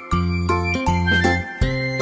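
Instrumental children's background music: a low bass line under a higher melody of short, bright notes.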